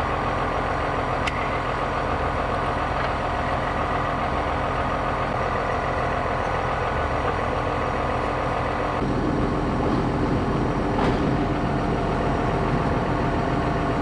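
John Deere tractor's diesel engine idling steadily, with a couple of light metallic clicks.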